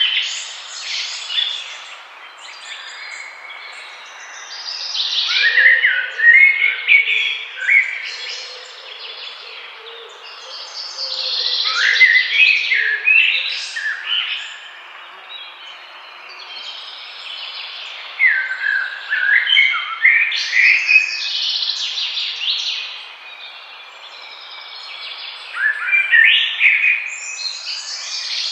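Birds singing and chirping in busy song phrases that come in bursts every six or seven seconds, with a steady hiss beneath them.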